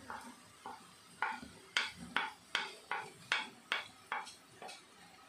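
A metal spoon clinking and tapping against a steel plate and a kadai as spice powder is spooned into the pan: about a dozen sharp, separate clinks.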